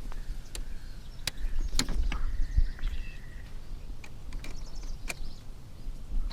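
Low, unsteady rumble with scattered sharp clicks and taps at irregular intervals, and a few faint high chirps.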